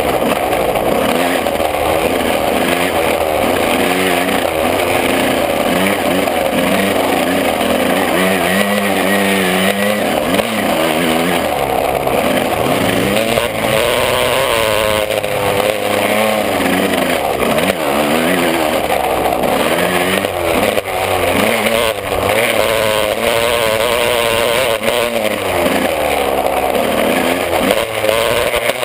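125 cc two-stroke motocross bike engine running hard on a dirt track, its pitch rising and falling again and again as the throttle opens and closes, heard onboard.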